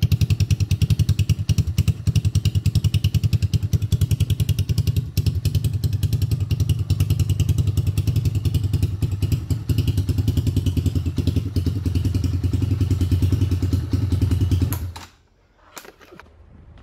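Chinese 250cc ATV quad bike engine idling steadily through its twin exhausts, with an even, fast pulse. The engine cuts off abruptly about fifteen seconds in, leaving only a few faint clicks.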